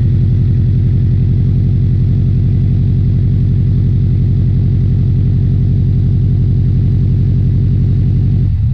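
Turbocharged engine of an 818 kit car idling steadily through its newly built exhaust with catalytic converter, then switched off right at the end.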